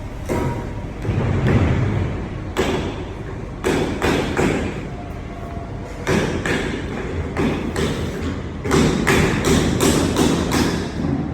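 A series of irregular thumps and knocks, a dozen or so, coming faster and closer together near the end.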